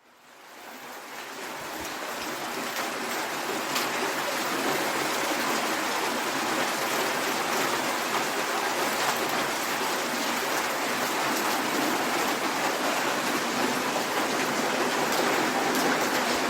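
Soft rain falling in a city: a steady hiss of rain with scattered drop ticks. It fades in from silence over the first couple of seconds.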